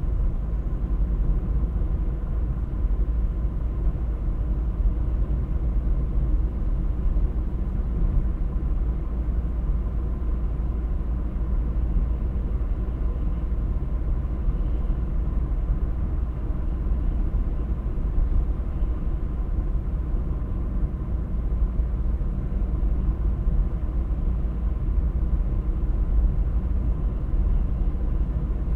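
A car driving steadily, with a low, even rumble of tyres and engine.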